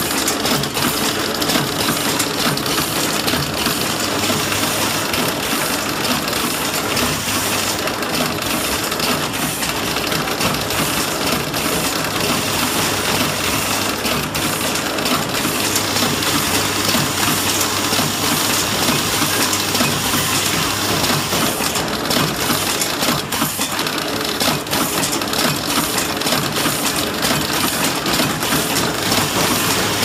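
Horizontal flow wrapping machine running steadily: a continuous mechanical clatter with dense metallic clicking and a low hum that comes and goes.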